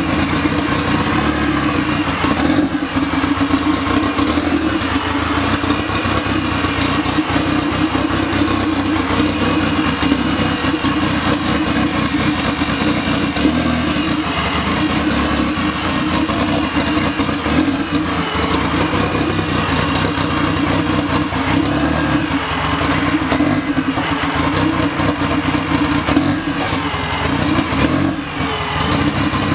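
Turbocharged Honda K-series engine in a Toyota MR2 running steadily at idle during its first start-up after the engine swap.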